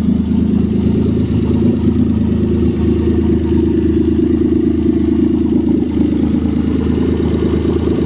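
1989 Dodge Caravan's engine running steadily just after starting, after years of sitting. Its exhaust note is one the owner puts down to an exhaust that has rusted out.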